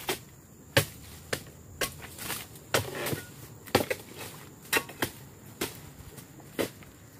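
Oil palm harvesting chisel (dodos) on a long pole chopping into the bases of oil palm fronds: about ten sharp strikes, one every half second to a second.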